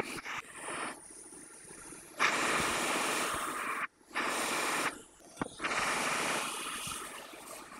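Flux sizzling under a soldering iron as solder joints are reflowed: a hiss that comes in three bursts of one to two seconds, each starting and stopping abruptly.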